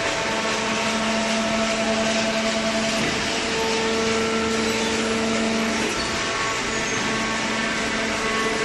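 Hydraulic horizontal paper baler running: a steady machine noise from its motor and pump, with a whine that holds for about six seconds, rising to a higher note partway through, then drops away.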